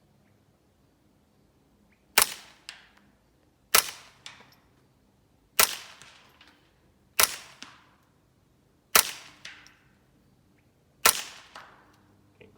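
Six suppressed shots from a Smith & Wesson M&P 15-22 semi-automatic .22 rifle with a Gemtech GM-22 suppressor, firing subsonic ammunition. The shots come in slow aimed fire, one every one and a half to two seconds, each a sharp crack followed about half a second later by a fainter crack.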